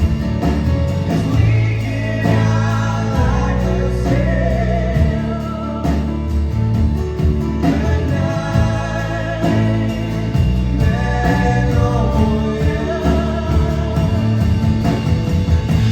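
A live band playing a song, with sung vocals over guitar and bass.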